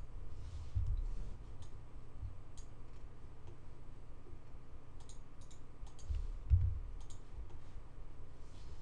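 Scattered computer mouse and keyboard clicks, a few in quick succession about five to six seconds in, with low dull thumps about a second in and, loudest, about six and a half seconds in.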